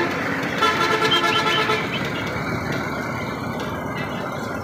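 Fairground noise heard from a Ferris wheel: a steady wash of sound, with a horn-like toot held for about a second near the start.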